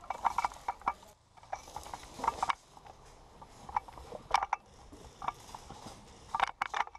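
Sharp mechanical clicks and rattles in irregular clusters from an airsoft electric rifle with a camera mounted on its scope as it is handled.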